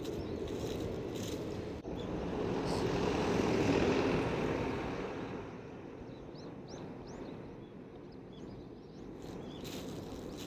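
A vehicle passing by, its noise swelling to a peak about four seconds in and then fading away. Walking footsteps are heard at the start and again near the end.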